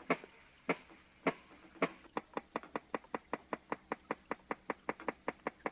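Walrus making a series of sharp knocks: a slow run of about one knock every half second, which speeds up about two seconds in to a steady run of about seven knocks a second.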